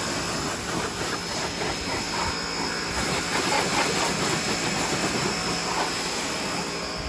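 Hyundai HYB80 electric pressure washer running, its jet of water hissing steadily against the car's bodywork.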